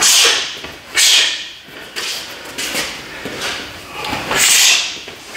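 A man's sharp hissing exhalations, one with each strike of a front kick and knee combination: two at the start about a second apart, then two more near the end.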